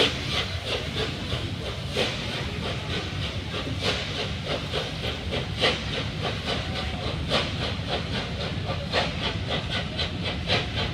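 Steam locomotive working a train of coaches away under power, steam hissing, with sharp beats every second or two over the steady rumble of the carriages on the rails.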